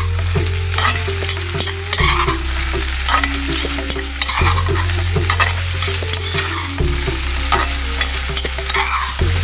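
Potato pieces frying and sizzling in oil in a kadai while a spatula stirs and tosses them, with frequent sharp clicks and scrapes against the pan.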